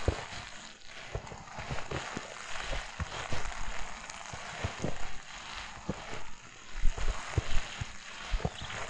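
Footsteps crunching through fresh snow at a walking pace, roughly two steps a second, each step a soft thud with a crisp crackle.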